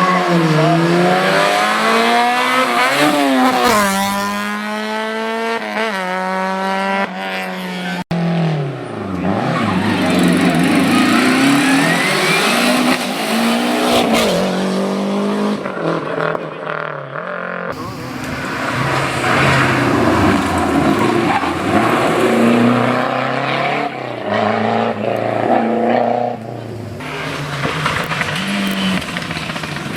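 Historic rally cars driven hard on a special stage, one after another: engines revving up and dropping through gear changes as they pass, with a sudden change to the next car about 8 seconds in.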